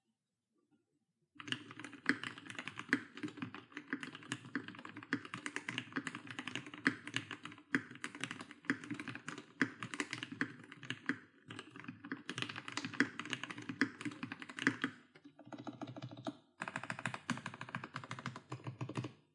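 Fast typing on a MelGeek Mojo68 mechanical keyboard fitted with Gateron Pro Brown tactile switches: a dense run of keystrokes starting about a second and a half in, with brief pauses now and then.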